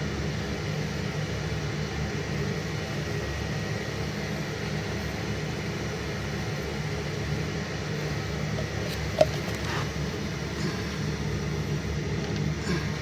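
A steady low mechanical hum, with one sharp click about nine seconds in.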